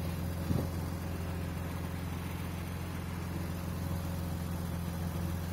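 A vehicle engine idling steadily: a low, even hum that does not change.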